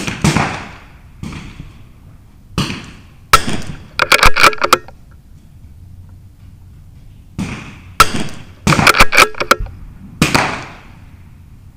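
.22 LR rimfire rifle shots on a benchrest range: several sharp cracks, some with a short echoing tail, with fainter reports from other benches between them. Twice a loud shot is followed by a quick run of metallic clicks as a bolt is cycled.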